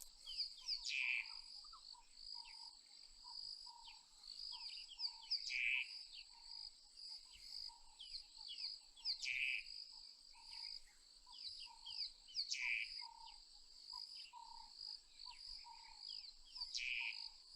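Steady high drone of insects, with birds chirping over it. One call stands out, repeated about every four seconds, and lower short notes come about twice a second.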